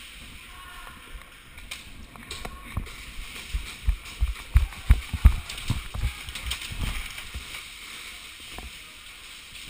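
A run of low thumps from movement, picked up through a helmet-mounted GoPro, loudest and most frequent in the middle, over a steady hiss, with a few faint clicks before them.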